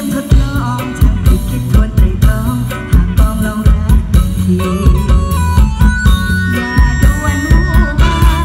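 Live Isan mor lam band music played loud over a concert sound system: a steady drum beat of about two beats a second under a held, sliding melody.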